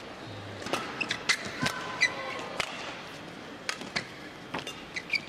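Badminton rally in a large arena. Under a second in, sharp racket strikes on the shuttlecock begin, mixed with short squeaks of shoes on the court mat, irregularly spaced.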